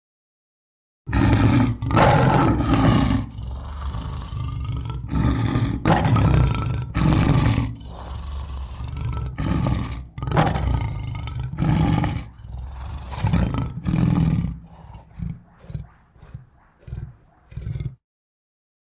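Lion roaring: a bout of heavy roars, roughly one a second, that taper off into shorter, fainter grunts near the end before cutting off.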